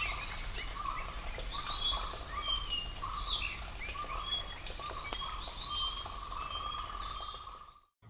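Natural recording of wild birds calling: many short chirps and whistled notes, some sliding down in pitch, over a repeated lower trilling note, fading out near the end.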